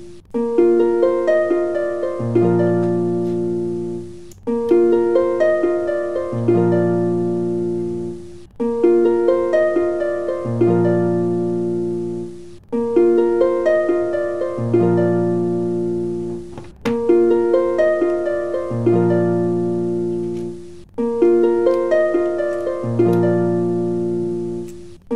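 Background music of plucked string notes, a short phrase looping about every four seconds.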